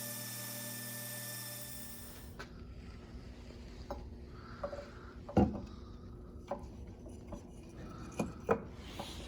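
A steady motor hum that shuts off about two seconds in, followed by scattered knocks and taps of hard objects being handled on a workbench, the loudest about halfway through and two more near the end.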